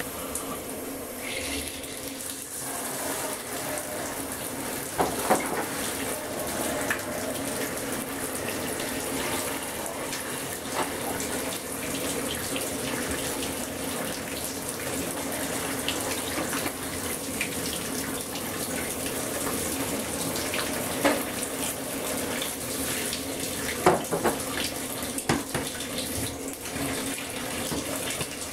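Tap water running steadily into a basin as a plastic toy vehicle is rinsed under it, with a few short knocks of the plastic being handled.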